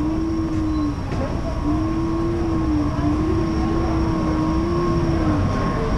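Electric scooter's motor whining at one slightly wavering pitch over a steady low rumble. The whine breaks off about a second in, then returns, and drops out again near the end.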